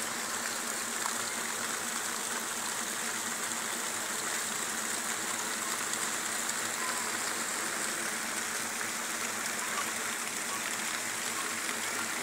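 Heavy rain falling steadily, an even hiss without breaks.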